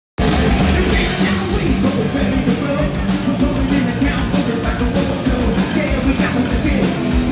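Live rock band playing loud: electric guitars, bass guitar and drums.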